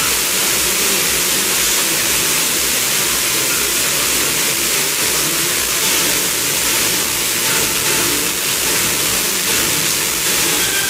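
Steady FM receiver hiss from a software-defined radio tuned to 94.2 MHz, with faint tones barely showing through. The weak France Musique signal, reflected off an approaching airliner, is not yet strong enough to quiet the noise.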